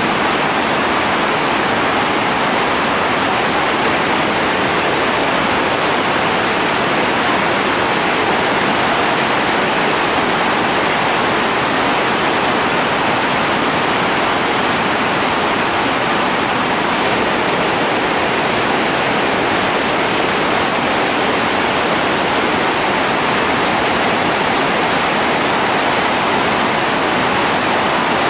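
Loud, steady rush of a big whitewater rapid, the river pouring and churning over rocks without a break.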